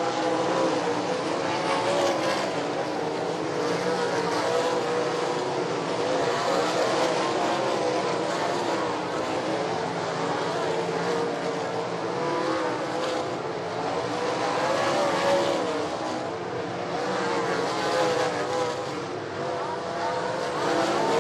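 Several sprint car engines running hard around the track, their pitch rising and falling as the cars go through the turns and pass.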